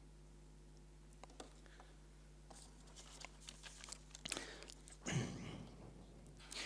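Faint rustling and crinkling of paper sheets being handled close to a handheld microphone, with scattered small clicks and a louder rustle about five seconds in, over a steady low hum.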